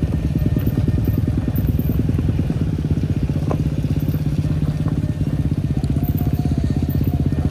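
Motorcycle engine running at steady, fairly low revs, with a rapid, even firing beat.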